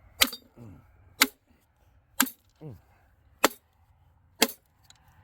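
Hammer blows on the metal parts of a large circuit breaker: five sharp strikes about a second apart, each with a brief metallic ring.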